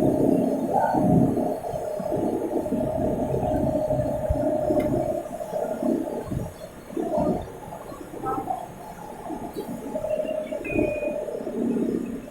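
Metal-turning lathe running while machining a steel crane rope drum: a wavering hum with irregular low rumbling, a little quieter after about five seconds.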